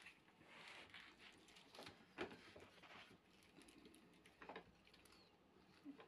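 Near silence: room tone with a few faint, soft, irregular pats and rustles.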